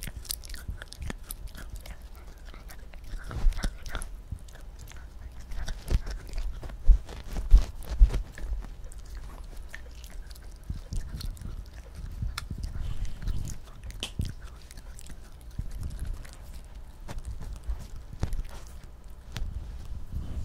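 Small dog chewing and biting a pig ear chew, recorded with the microphone held right at its mouth: irregular crunches and clicks of teeth on the chew, loudest about six to eight seconds in.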